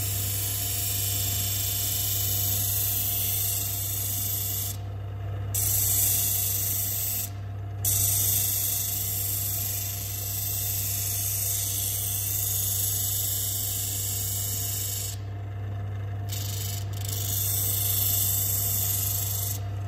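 Bench disc sander running with a steady motor hum while a wooden block is pressed against the spinning abrasive disc, giving a continuous sanding hiss as its end is ground down to a marked curve. The hiss breaks off briefly a few times while the motor hum carries on.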